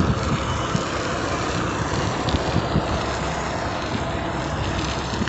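Steady rushing noise of riding a bicycle along a paved road: wind and road noise, with no single loud event.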